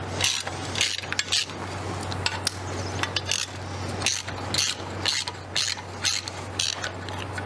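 Hand ratchets and wrenches clicking and clinking against metal as bolts are loosened on a V8 engine, in quick irregular bursts over a steady low hum.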